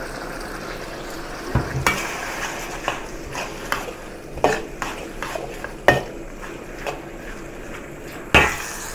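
Beef and tomato sauce sizzling in a wok as rice wine is poured in, then a metal wok spatula scraping and knocking against the wok in irregular strokes as it stirs, with sharp clangs about six seconds in and near the end.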